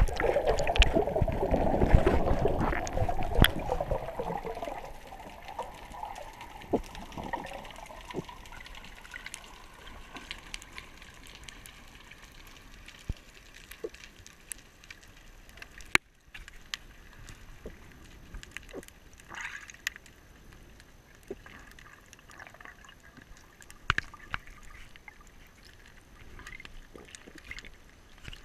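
Water rushing and bubbling over a GoPro's underwater housing, loud for the first few seconds as a freediver strokes down from the surface. After that it settles into a quieter underwater hiss with scattered clicks and crackles.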